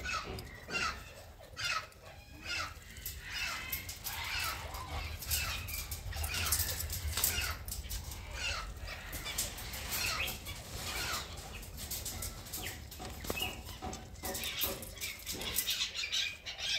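Many birds chirping and calling at once, short sweeping notes overlapping almost continuously, with wings flapping.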